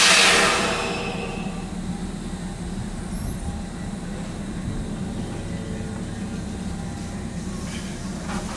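A stopped electric commuter train lets out a sharp burst of compressed air right at the start, a hiss that dies away over about a second. Then the train's equipment hums steadily while it stands at the platform.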